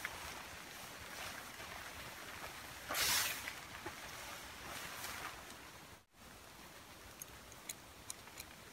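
Thin white tent cover rustling and swishing as it is spread and pulled over a tent, with a louder swish about three seconds in. After a brief break it is quieter, with small clicks and rustles from hands tying the cover's cord.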